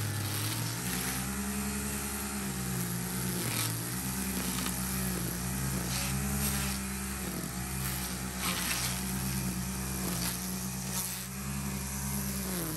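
Stihl FS 91 R string trimmer running at working speed through thick grass, its engine pitch dipping and recovering every couple of seconds as the line takes load.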